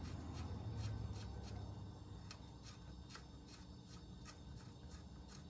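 Faint, fairly regular clicks of a ratchet wrench, about three a second, as bolts are tightened down.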